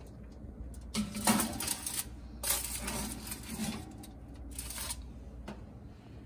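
Foil-lined metal baking tray sliding over a wire oven rack, scraping and rattling in three bursts, the second the longest.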